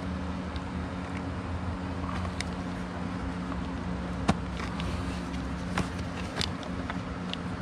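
Steady low mechanical hum underneath a few sharp clicks and taps of a flat-head screwdriver prying the fuel line loose at a Yamaha HPDI outboard's low-pressure fuel pump, the loudest click about four seconds in.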